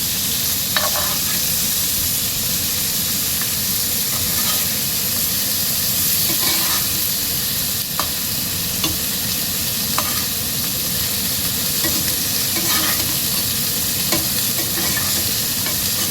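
Chicken and spiced onion-tomato masala sizzling in oil on a tawa as it is stirred with a spatula, with several short scrapes and taps of the spatula against the pan. The masala is at the roasting stage.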